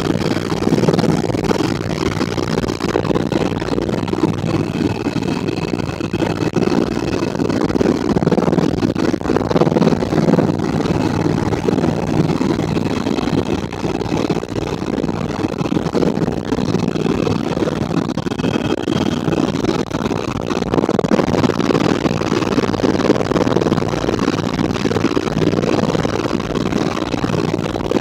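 Helicopter turbine and rotor noise heard on board in flight: a loud, steady drone with a faint higher whine over it.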